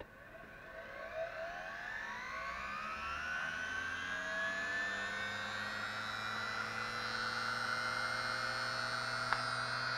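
Large brushed universal motor running on 30 volts DC with its field winding fed only half a volt, spinning up slowly. A whine rises in pitch over the first few seconds and grows louder, then levels off high and steady. The very weak field lets it run super fast, but it takes a long time to get up to that speed.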